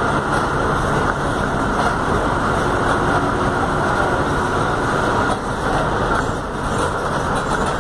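Volkswagen 17-230 OD city bus driving, heard from inside the passenger cabin: steady engine and road noise, easing slightly for about a second around five and a half seconds in.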